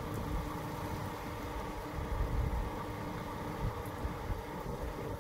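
Idling fire engine giving a steady engine hum, with uneven low rumbling from wind on the microphone.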